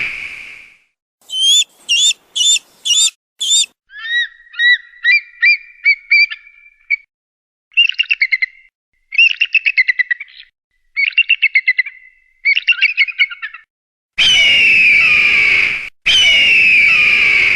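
Eagle calls played as a sequence of separate clips. First about five rising-and-falling whistles, then a run of quick sharp chips and two long chattering series, then two long, harsh, descending screams near the end.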